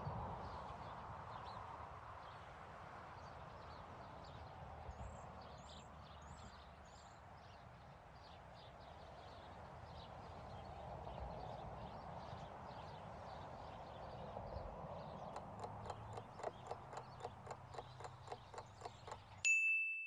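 A faint steady background ambience with a few high chirps, then a countdown clock ticking about three or four times a second over the last few seconds. It ends in a single loud bell ding that rings and fades, signalling time's up.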